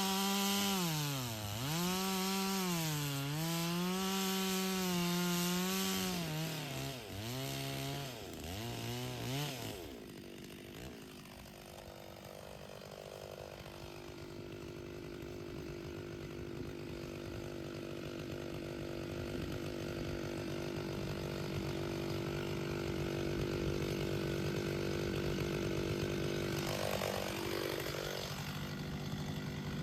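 Stihl chainsaw cutting through firewood logs, its engine note dipping and recovering over and over as the chain bogs in the cut. About ten seconds in it drops to a steady, lower running note that slowly grows louder, with one short rev near the end.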